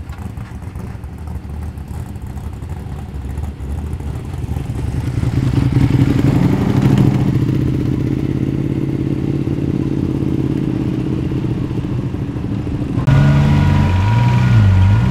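A Holden VH Commodore's engine running as the car drives out, its note growing louder from about four seconds in. Near the end a louder engine with a wavering pitch cuts in suddenly.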